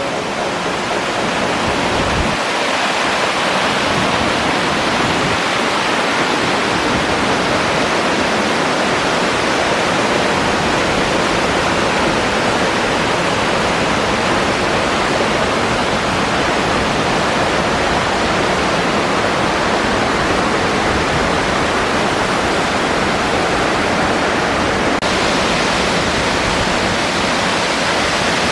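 Small waterfall and stream rushing and splashing down over layered rock slabs: a steady, loud rushing noise of running water. It turns a little brighter near the end.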